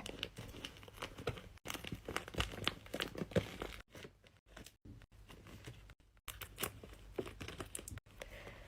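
Faint paper crinkling and rustling, in short scattered crackles as paper crafting materials are handled.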